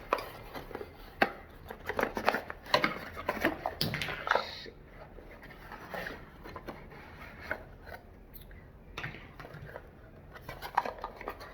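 Small perfume boxes and sample packaging being handled and opened by hand: scattered clicks, taps and scraping, busiest in the first half, then quieter rubbing.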